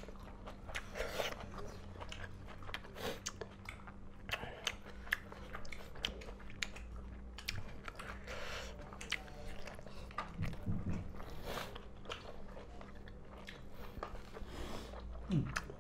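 Wet chewing and biting of a meal of pork curry with soibum, fermented bamboo shoot, eaten by hand: many quick mouth clicks, smacks and small crunches, with a short low grunt or hum twice.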